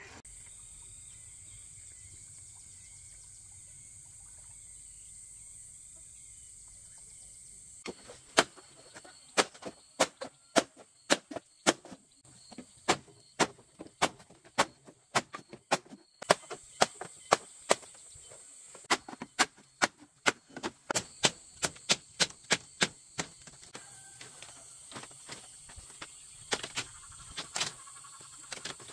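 Machete chopping bamboo: sharp, loud strikes about two a second, starting about eight seconds in and thinning to a few softer knocks near the end. A steady high insect buzz runs underneath throughout.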